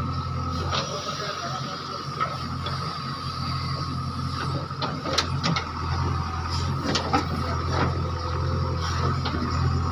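JCB digger's diesel engine running steadily under work, with scattered sharp metallic clanks and knocks, most of them in the middle of the stretch.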